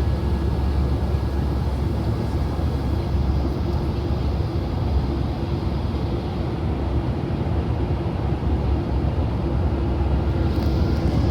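Steady cabin noise inside a Boeing 737-800: an even, low rumble of the engines and rushing air, holding level throughout.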